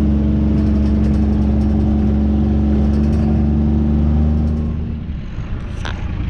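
Off-road utility vehicle's engine running steadily under way, easing off about five seconds in. A single short knock comes near the end.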